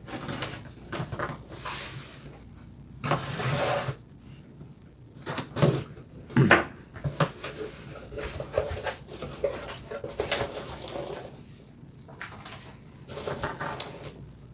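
A cardboard shipping box being opened by hand: packing tape ripped away with a long rasp about three seconds in, flaps knocked and folded back, then a hand rummaging through styrofoam packing peanuts with a steady crinkly rustle.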